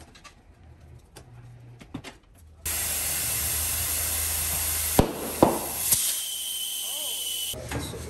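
Compressed air hissing into a freshly mounted Dunlop American Elite motorcycle tire on a tire changer. The hiss starts suddenly about two and a half seconds in and cuts off near the end, with three sharp pops around the middle as the tire beads snap onto the rim.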